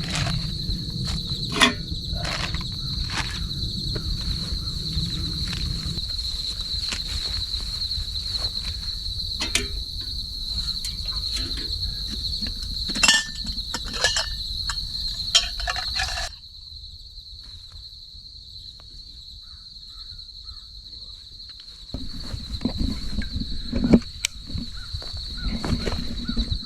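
Steady high-pitched insect chorus, with scattered clicks and knocks from camp gear being handled. A low background noise underneath drops away suddenly a little past halfway and comes back near the end.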